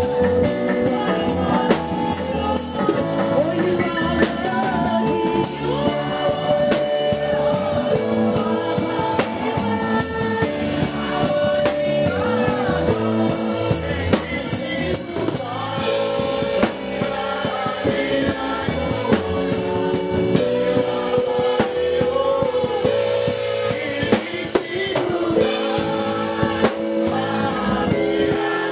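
Gospel worship music: voices singing over a drum kit and band, with held chords and a steady beat.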